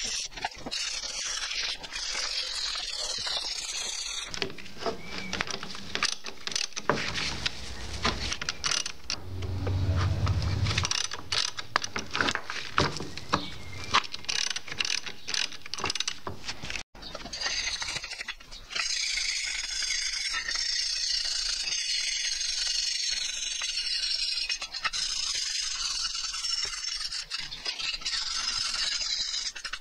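Scrubbing on the wet aluminium mower deck for the first few seconds, then a socket ratchet clicking and knocking on a finned engine flywheel for about twelve seconds, then steady rubbing and scrubbing on a rusty metal plate.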